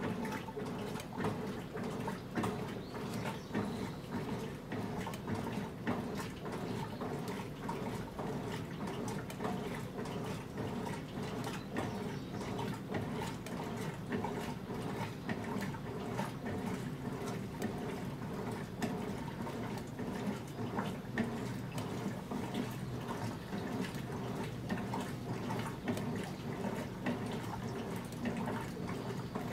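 Electrolux LM08A top-loading washing machine running a wash with water and clothes sloshing in the tub around the agitator. It makes a steady churning noise with small irregular splashes throughout.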